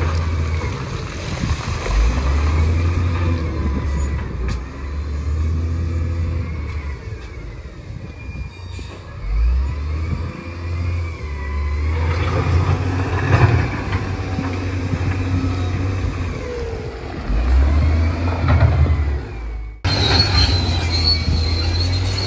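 Bulldozer's diesel engine working under load, its note rising and falling as it pushes mud, with squealing and clanking from the steel tracks. An abrupt edit about 20 seconds in jumps to the same kind of engine sound.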